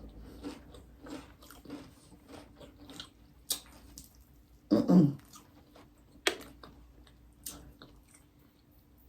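Close-up chewing and biting of a toasted grinder sandwich: soft wet chewing with scattered crackles and a few sharp crunches, and a short vocal sound about five seconds in.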